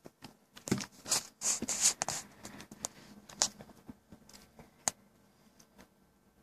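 A Casio fx-83GT Plus calculator and its hard plastic slide-on cover being handled: scraping and rubbing of plastic with scattered clicks, loudest in the first two seconds, then a few faint clicks.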